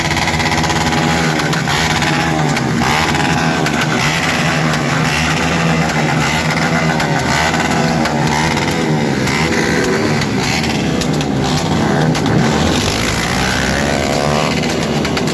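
Several motorcycle engines revving hard at high rpm together, their overlapping pitches rising and falling continuously.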